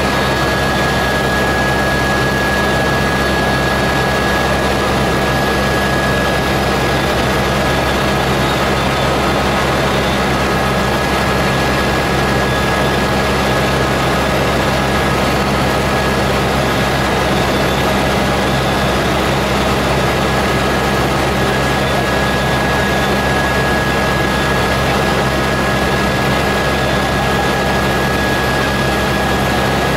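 Eurocopter AS350B Ecureuil helicopter in cruise flight, heard inside the cabin: its turbine engine and rotors run steadily, a constant high whine over a low drone.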